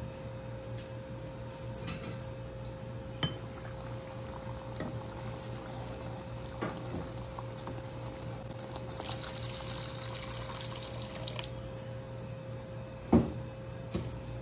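A spoon stirring thick dal in a cooking pot, with wet liquid sounds, scraping, a few clicks and one sharp knock against the pot near the end. A steady low hum runs underneath.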